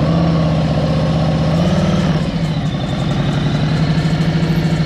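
Harley-Davidson motorcycle's V-twin engine idling just after start-up, with a slight blip of the throttle about two seconds in, then settling back to an even, pulsing idle.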